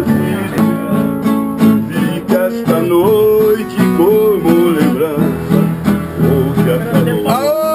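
Acoustic guitar strummed in a steady rhythm, playing chords. A voice comes in over it near the end.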